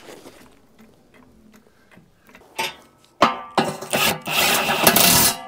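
Faint handling clicks, then about three seconds in a cordless impact wrench runs in several short loud bursts, hammering a bolt on the underside of a drum mower's disc.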